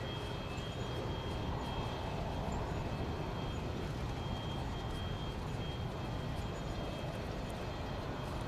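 Boeing 787-9 Dreamliner's jet engines heard from the ground as it banks overhead: a steady rumble with a faint high whine above it.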